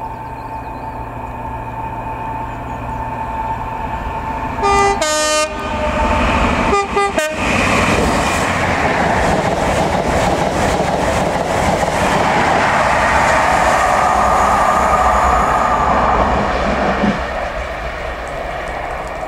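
Cross Country Class 43 HST power car's MTU diesel approaching at high speed, sounding its two-tone horn in two short blasts about five and seven seconds in. The train then passes close with a loud, steady noise of engine, wheels and coaches on the rails, which drops away near the end.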